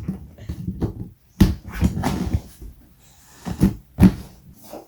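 Hard plastic knocks and clicks as the locking latches of a plastic cat litter box are worked and pushed shut, about half a dozen sharp knocks at uneven intervals, with handling noise between them.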